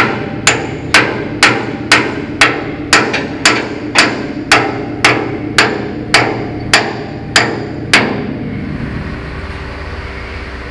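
A hammer striking steel in an even rhythm, about two blows a second, some sixteen blows that stop about eight seconds in, each with a short metallic ring: a new pin being driven into the roll-out cylinder's spherical bushing.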